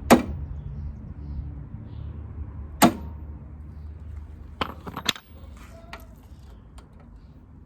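Hammer blows driving a small pin through the deck lift button into a Craftsman DLT3000 lawn tractor's lift handle: a sharp metallic strike at the start, the loudest, a second about three seconds later, then a quick run of lighter taps about five seconds in. The pin is working its way in.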